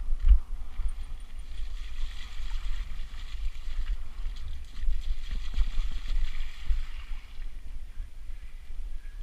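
Mountain bike rolling down a dirt track, with wind buffeting the camera microphone. From about a second and a half in until near the end, the tyres splash and squelch through muddy puddles.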